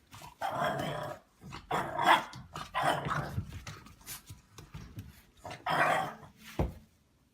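A dog barking and growling in several short, rough outbursts.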